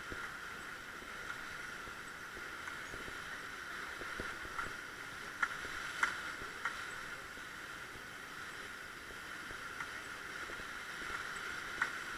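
Steady rush of river water around a raft running a rapid, with a few brief sharp sounds in the middle and near the end.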